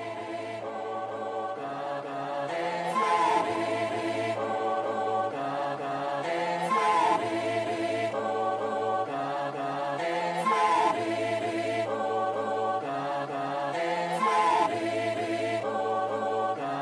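Background music: a layered choir-like vocal pad over a low held bass, with a short rising vocal phrase repeating about every four seconds, slowly getting louder.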